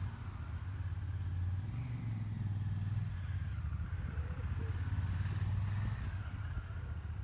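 Honda ST1100 Pan European's V4 engine idling with a low, steady note that lifts slightly twice.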